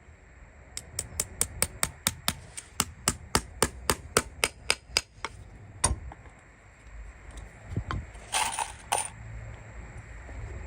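Farrier's hammer tapping in a quick, even run of light strikes, about five a second for some four seconds. Then comes a single harder knock and, later, a short scraping burst.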